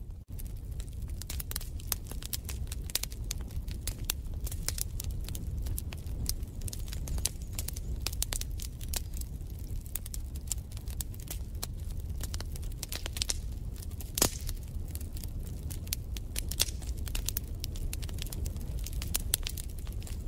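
Wood fire crackling and popping, with irregular sharp snaps over a low steady rumble. The sound cuts out for a moment right at the start, and there is one louder pop about two-thirds of the way through.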